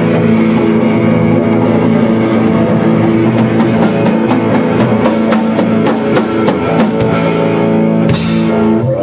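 Rock band playing an instrumental passage: electric guitars ringing over a drum kit. The drum strokes get busier in the second half, with a cymbal crash about eight seconds in.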